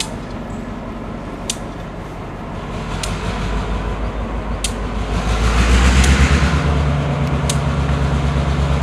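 EMD GP38 diesel locomotive, a 16-cylinder two-stroke, running as it approaches slowly at the head of a passenger train. Its low, steady drone grows louder about five seconds in, with a brief rushing noise as it peaks. Sharp clicks come about every second and a half.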